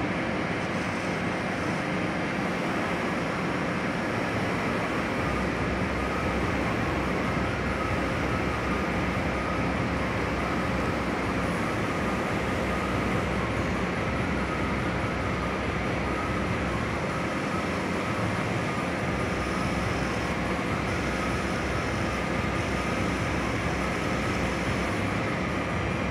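Metal lathe running steadily while its cutting tool turns down a metal bar: a continuous machine drone with a faint, slightly wavering whine.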